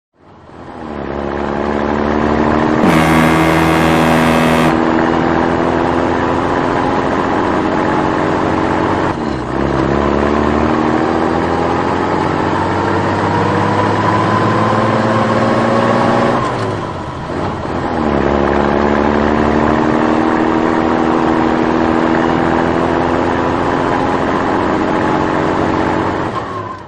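A vehicle engine accelerating through the gears: its pitch climbs steadily, drops back twice as it shifts up, and climbs again, three rising runs in all. A brief brighter sound joins about three seconds in. The whole sound fades in at the start and fades out at the end.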